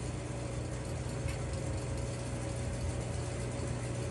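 A steady low machine hum that holds level throughout.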